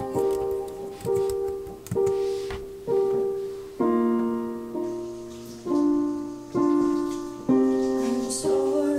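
Background music: slow, gentle solo piano, a note or chord struck about once a second and left to fade.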